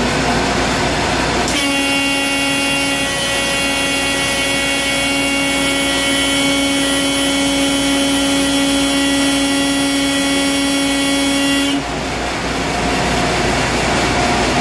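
Compressed-air acoustic horn cleaner on a dust hopper sounding one long, steady horn tone for about ten seconds. It starts about a second and a half in and cuts off sharply. The blast is used to shake loose powder caked inside the hopper.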